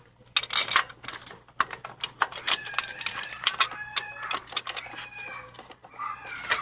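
Sharp metallic clicks and clinks as the shift cables and linkage are handled and fitted on a Honda manual transmission. A drawn-out pitched call sounds in the background from about two and a half to five seconds in.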